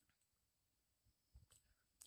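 Near silence, with a faint low knock and a click about one and a half seconds in.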